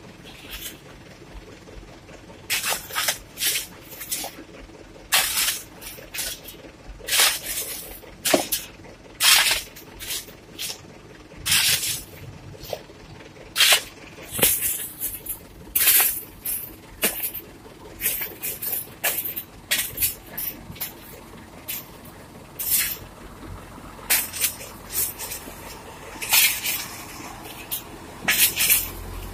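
Short hisses of compressed air, one every second or two at irregular intervals, from a loaded log truck's air brakes, over a low engine rumble.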